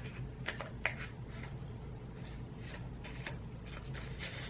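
Hands handling small packaging and accessories: a few light clicks and rustles over a steady low hum.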